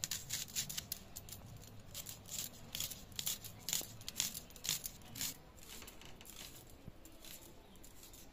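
Dry, papery onion skins crackling and tearing as an onion is peeled and trimmed against a bonti blade: quick, irregular crackles for about five seconds, then fewer and softer.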